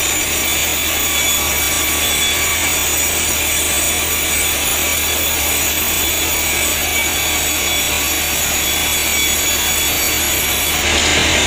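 Band sawmill blade cutting lengthwise through a log: a steady sawing noise over a constant low hum from the machine.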